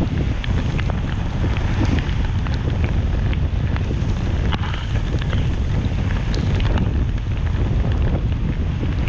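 Steady low rumble of a car driving on a wet road, with scattered faint ticks.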